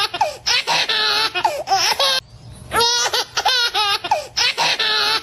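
Baby laughing in high-pitched, wavering squeals and breathy giggles, in short bursts. The same run of laughter comes around twice.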